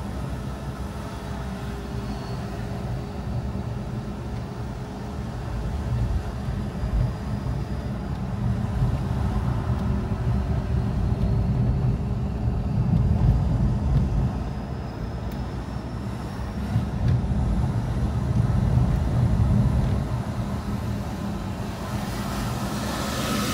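Car driving, with a steady low engine and road rumble and a faint whine that dips and rises in pitch with engine speed. A rush of noise swells near the end.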